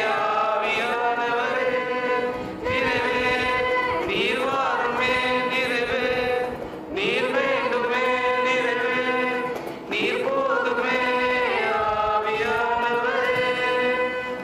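A mixed group of young men and women singing a Tamil Christian worship song together, with long held notes in phrases of about three seconds and short breaks between them.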